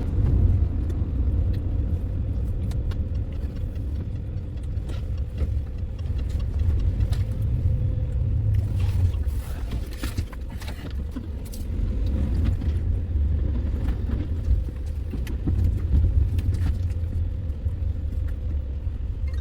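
A road vehicle driving, with a steady low rumble of engine and tyres. Faint clicks and rattles come and go over it.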